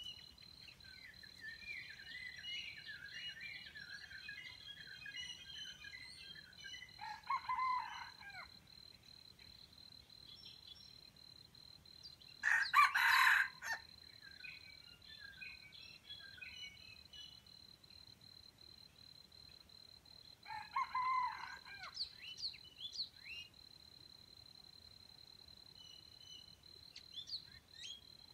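Junglefowl roosters crowing three times with short crows, the middle one the loudest, about halfway through. Small birds chirp throughout over a steady high-pitched tone.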